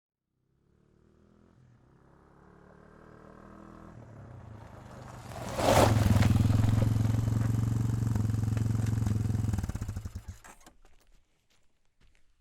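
Quad bike (ATV) engine approaching and growing steadily louder, passing close about six seconds in with a sudden loud rush, then running loud and steady for about four seconds before dropping away abruptly; a few faint ticks follow.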